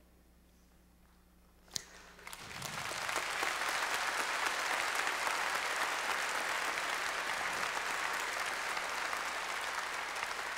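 After about two seconds of near silence, an audience breaks into applause that builds, holds steady, and begins to fade near the end.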